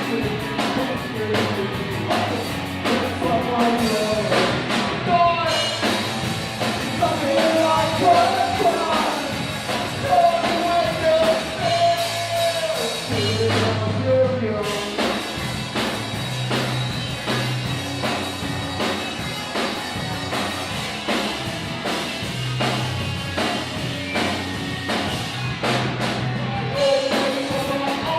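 Rock song with a singer over drums, bass and guitar, a steady beat throughout.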